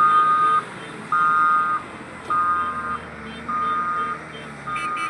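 Heavy machine's warning alarm beeping in an even pattern, five beeps about one every 1.2 seconds, over the steady low hum of a diesel engine.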